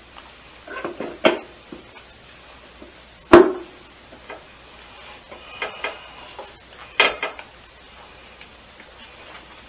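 Torque converter of a Chrysler 727 TorqueFlite automatic transmission being turned by hand in the bellhousing and worked into place, clunking metal on metal. There is a pair of knocks about a second in and the loudest knock about a third of the way in. A brief metallic ring comes near the middle, and another sharp knock comes about three-quarters through.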